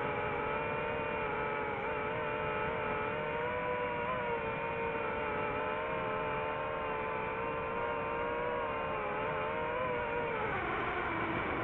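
A drone's motors and propellers whine steadily at a held pitch that wavers slightly. About ten seconds in the pitch drops, then climbs again.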